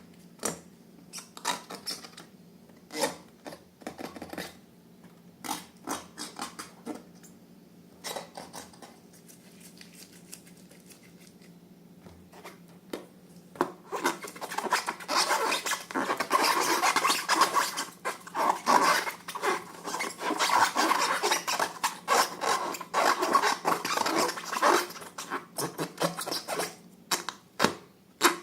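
Hands working slime-making materials: scattered light taps and clicks, then from about halfway through a long stretch of continuous rapid scraping and rubbing, which fades into a few taps again near the end.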